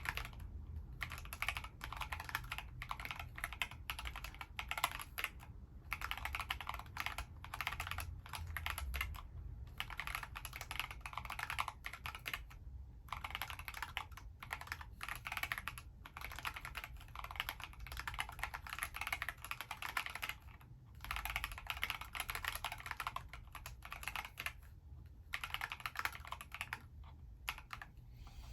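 Steady typing on an Alice-layout mechanical keyboard: runs of rapid keystroke clacks, broken by brief pauses a few times.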